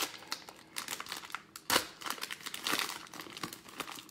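Plastic-and-foil wrapper of a Prizm football card pack crinkling and tearing as hands pull it open, a run of irregular sharp crackles with the loudest a little under halfway through.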